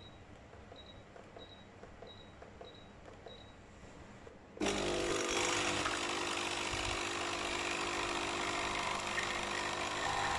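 Six short high electronic beeps from the HiBREW H1B coffee machine's control buttons, a little over half a second apart. About four and a half seconds in, the machine's pump starts suddenly with a loud, steady mechanical buzz as it brews, running on to the end.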